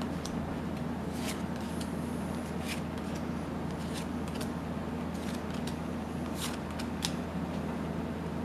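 Yu-Gi-Oh trading cards slid and flicked off the front of a hand-held stack one at a time, giving about a dozen short, crisp snaps at irregular intervals. A steady low hum runs underneath.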